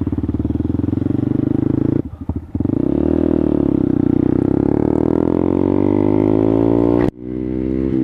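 2014 Honda Grom's 125 cc single-cylinder engine, fitted with a Two Brothers aftermarket exhaust, pulling under way. The engine note drops away briefly about two seconds in, then climbs steadily in pitch for several seconds and cuts off sharply near the end, as when the rider shifts up between gears.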